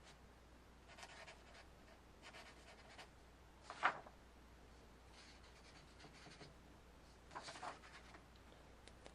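Faint pen scratches of writing on paper, in a few short spells, with one sharper tap or click about four seconds in.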